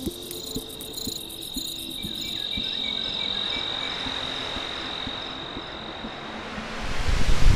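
Crickets chirping, with soft ticks about twice a second under them. From about the middle, a wind-like whoosh swells steadily and grows into a loud rush at the end.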